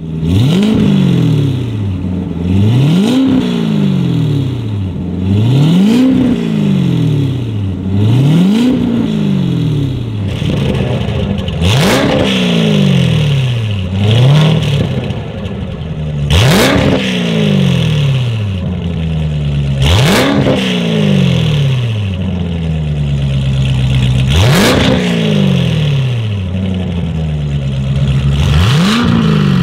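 Chevrolet Corvette Z06 C7's supercharged 6.2-litre LT4 V8 free-revving at standstill through a Fi Exhaust valvetronic catback and downpipes: about ten blips, each rising quickly in pitch and falling back. For roughly the first ten seconds the exhaust valves are closed; after that they are open and the exhaust is much louder.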